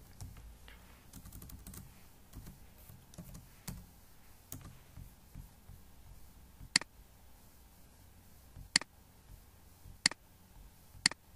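Light computer keyboard tapping in the first few seconds, then four sharp, separate clicks a second or two apart, from the keyboard and mouse.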